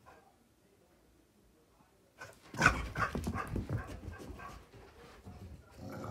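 A dog's sounds during a burst of bedtime zoomies, starting suddenly about two seconds in after near quiet as it bolts from its bed down the hallway.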